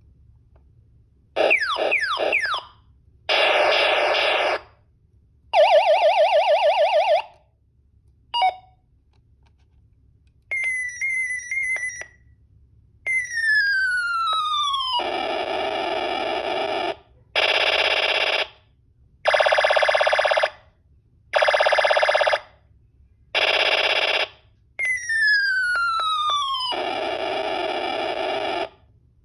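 Revenger II electronic sound effects generator toy playing its synthesized effects one after another, with short pauses between them. They include quick falling laser-like sweeps, buzzy rapid-fire bursts, a warbling ring like a telephone, and long falling whistles that each end in a noisy blast like a bomb.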